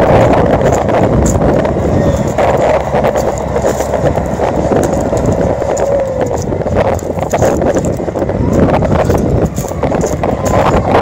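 John Deere 6420's four-cylinder turbo diesel running under load as the tractor pulls a Kverneland LD 85 plough through the soil, with wind buffeting the microphone.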